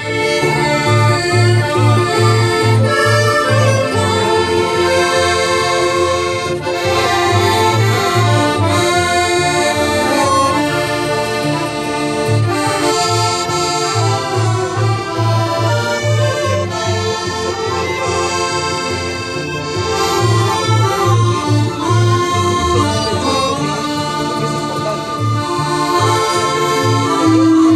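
Andean folk ensemble playing a tune, led by accordions with violin, over an even bass beat.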